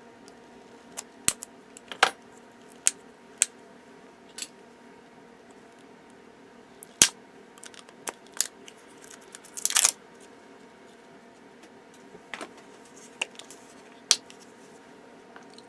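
Scattered sharp clicks and taps of acrylic paint bottles and caps being handled and opened on a craft table, with a short scratchy rustle just past halfway, over a faint steady hum.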